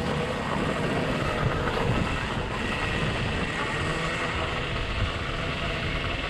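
Wind rushing over an action camera's microphone while riding, with a faint steady high whine over it.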